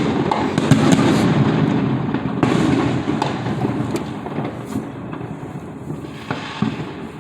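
Many fireworks going off in rapid succession: a continuous rumble of overlapping booms with sharp cracks and pops scattered through it. The barrage eases off after about three seconds.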